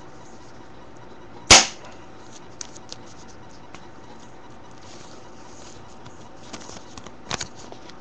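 A .45-style airsoft pistol firing a single 6 mm BB: one sharp, loud crack about a second and a half in. Faint clicks follow, with a smaller sharp double tap near the end.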